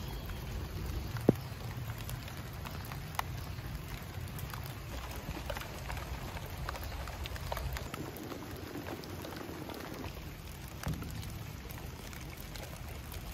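Steady rain falling, individual drops pattering close by, with one sharper tap about a second in.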